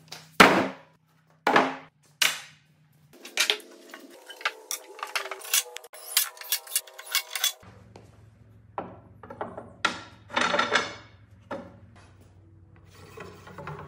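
Wood and tools being handled on a workbench. A few heavy knocks come first, then a quick run of sharp taps and clicks, then more knocks and scraping.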